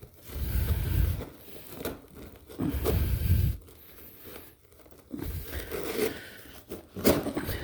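Rolled-up carpet being handled and strapped shut: rustling, crunching bursts of the carpet and pad, two of them about a second long, with a sharp snap near the end.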